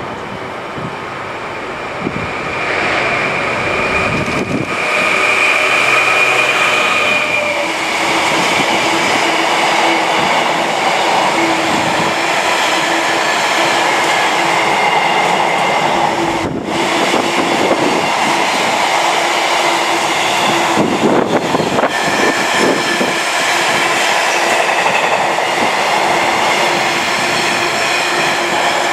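Class 66 diesel locomotive passing close by at the head of a container freight train, then the container wagons rolling past with a steady rumble, wheel clatter and several high steady tones.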